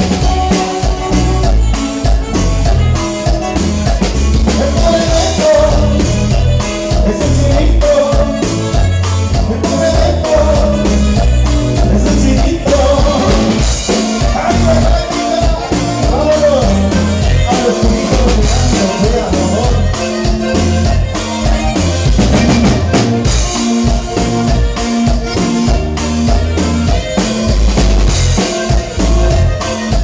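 A live band playing dance music: a drum kit keeps a steady beat under a wavering melody, loud and without a break.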